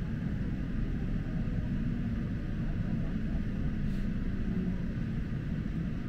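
Steady low rumble of a local electric train running, heard from inside the passenger car: wheels on the rails and the carriage's running noise at an even level.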